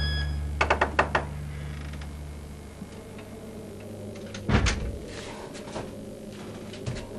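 A low held music chord fades out, with a quick run of sharp clicks about a second in. About four and a half seconds in, a wooden wardrobe door bumps once, and there is a smaller knock near the end.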